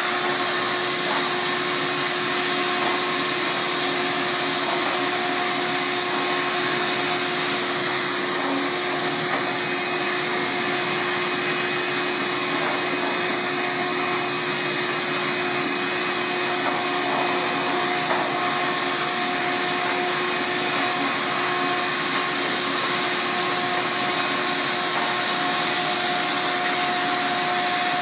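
Vacuum cleaner running steadily with a constant whine as it sucks lint out of a dryer's lint drain through a custom nozzle tool.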